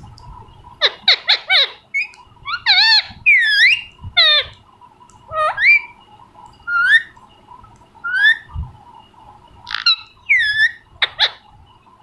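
Young parakeet calling: a series of about a dozen short squawks and chirps, some gliding up in pitch and some down, with a quick run of four about a second in.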